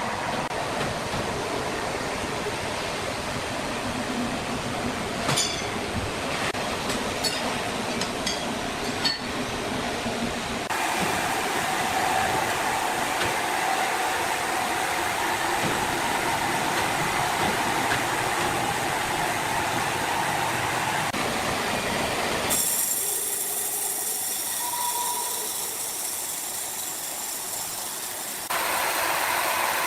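Sawmill machinery running, a steady mechanical noise with a few sharp clicks in the first third. The sound changes abruptly three times, where separate recordings are cut together.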